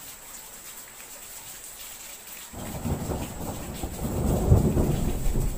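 Steady rain hiss, then a roll of thunder that breaks in suddenly about halfway and builds to a deep rumble, loudest shortly before the end.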